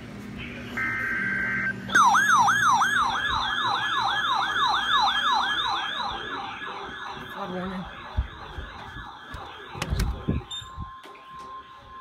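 An Emergency Alert System broadcast's opening: a short buzzy burst of digital header data, then a siren-like alarm warbling fast, about four sweeps a second, that fades over several seconds. A few clicks near ten seconds in, then the steady attention tone of about 1050 Hz begins.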